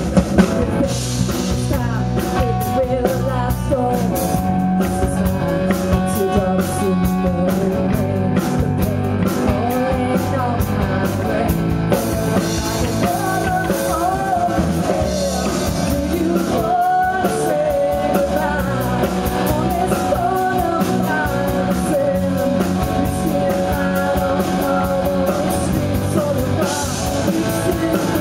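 Indie rock band playing live: drum kit, electric bass and electric guitar, with a woman singing over them. The music drops out for a moment a little past halfway, then carries on.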